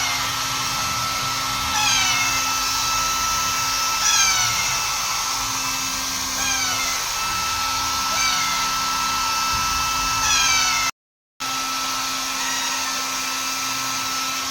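Hair dryer running steadily, with a baby parrot calling over it: short, falling chirps repeated every second or two.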